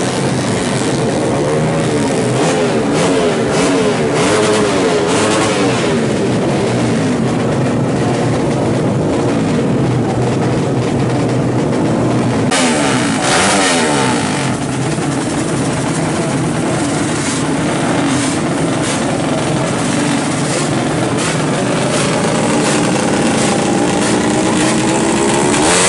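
Tuned small-capacity drag-race motorcycle engines revving hard, their pitch rising and falling over and over, more than one bike running at once. The sound changes abruptly about halfway through.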